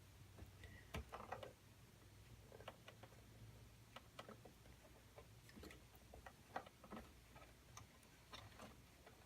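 Faint, irregular light clicks and taps of hands handling small plastic connectors and cables inside a desktop PC case, over a low steady room hum. The loudest clicks come about a second in and again about two-thirds of the way through.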